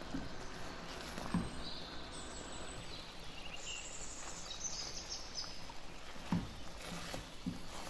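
A spatula stirring a simmering rajma curry in a pan, with two sharp knocks of the spatula against the pan. A few faint high chirps sit in the background around the middle.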